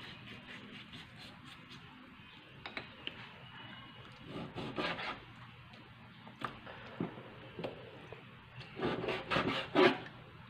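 Kitchen knife cutting raw pork on a cutting board: scraping, sawing strokes of the blade through the meat and scattered light taps of the knife on the board, with a longer, louder run of scraping near the end.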